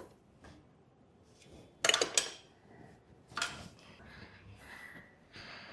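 Metal clinks and knocks of exhaust parts, bolts and hand tools being handled while fitting a motorcycle exhaust end can: a loud cluster of sharp clinks about two seconds in, another single clink about three and a half seconds in, with faint handling noise between.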